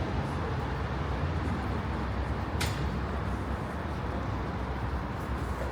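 City street ambience: a steady low rumble of road traffic, with one brief sharp click a little over halfway through.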